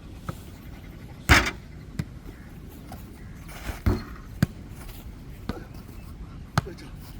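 Football rally in table foot-volley: the ball thuds sharply on the table and off players' feet, chest or head about once a second, with two of the hits louder than the rest.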